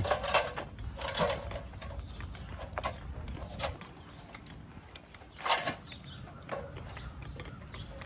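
Scattered light clicks and knocks, a few seconds apart, over a low steady rumble.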